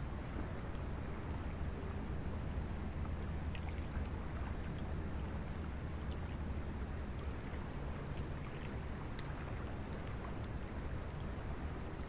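Steady low outdoor rumble with faint scattered ticks above it.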